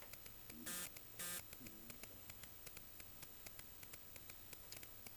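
Quiet room hiss with faint scattered ticks, broken about a second in by two short hissing noises.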